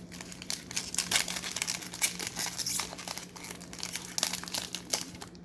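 Plastic card packaging crinkling and rustling as basketball trading cards are handled and sorted during a pack opening, in a dense run of small crackles.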